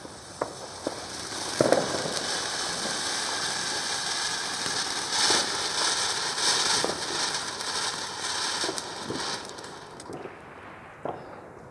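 Comet Happy Night pyrotechnic ground fountain burning: a few sharp pops as it gets going, then a steady spray hiss with scattered crackles, which dies away near the end.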